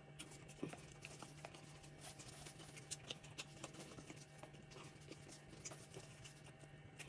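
Faint, close-miked chewing and wet mouth sounds of someone eating: scattered soft clicks and smacks over a steady low hum.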